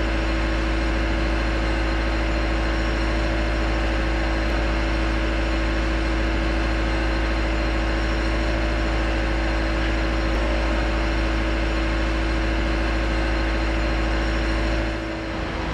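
A steady mechanical drone like an idling engine: a deep, constant hum with a steady tone above it, unchanging until it eases off near the end.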